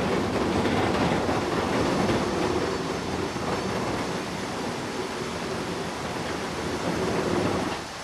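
Sawmill machinery running: a dense, steady mechanical noise that drops in level near the end.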